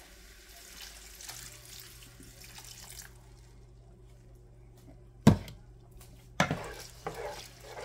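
Chicken broth pouring from a cup into a pan of sausage and rice for about three seconds, a soft splashing hiss. Two sharp knocks follow about a second apart, the loudest sounds, as the stirring begins.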